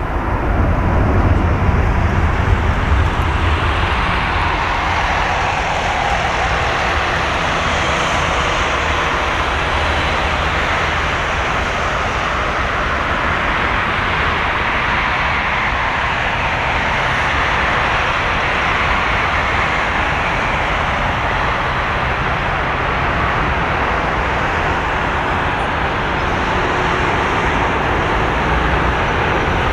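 Rolls-Royce Trent 1000 turbofans of a Boeing 787-8 on its landing rollout: a loud, steady jet rush that swells about a second in and then holds evenly.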